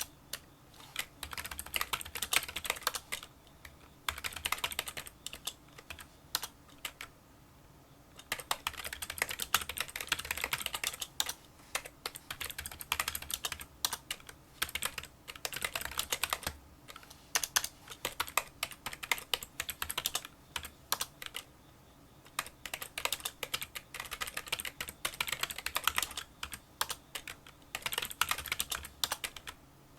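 Touch-typing on a Kinesis Freestyle Solo split keyboard with membrane key switches: fast runs of small, quiet clicking keystrokes, broken by a few short pauses.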